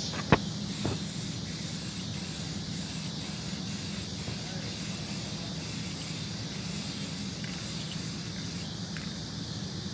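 Aerosol spray-paint can hissing steadily as paint is sprayed onto a car's quarter panel, with a sharp click about a third of a second in.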